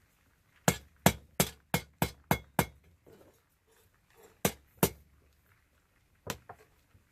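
Hand hammer striking a rebar workpiece being forged into blacksmith's tongs, each blow sharp and ringing. There is a quick run of seven blows in the first few seconds, then two more, then a single blow followed by a few light taps near the end.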